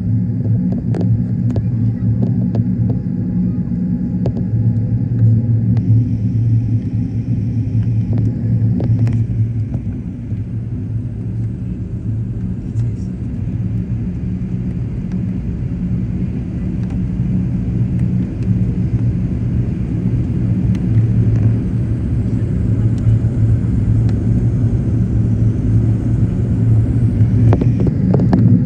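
Airbus A380 cabin noise during the climb after takeoff: a steady low rumble of the engines and rushing air, heard from a window seat inside the cabin.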